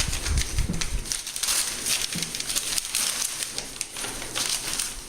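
Plastic wrapping crinkling and rustling as wrapped grill grate panels are handled, with a busy run of crackles and small clicks throughout.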